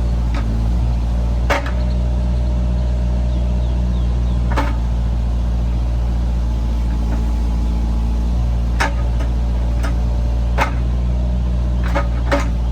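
Bobcat mini excavator's diesel engine running steadily under load while the arm and bucket work, with about half a dozen sharp knocks from the bucket and linkage at irregular intervals.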